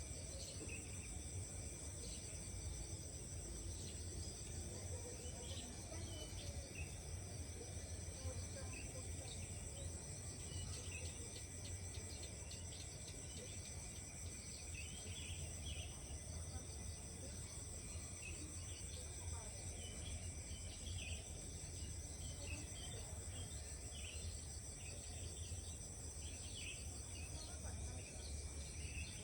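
Steady chorus of insects holding several high tones, with short chirps scattered through it and a low rumble underneath.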